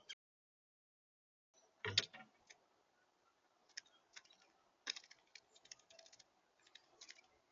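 Irregular light taps and clicks of a bird pecking and moving about on a feeder right at the birdcam's microphone, with one louder knock about two seconds in.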